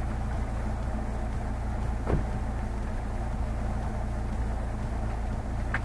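Chevrolet Niva's four-cylinder engine running steadily as the car drives off-road, with a sharp knock about two seconds in and a fainter click near the end.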